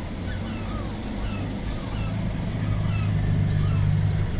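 Diesel coach engine running with a steady low drone that gets louder over a few seconds, then cuts off just before the end. A short air hiss comes about a second in.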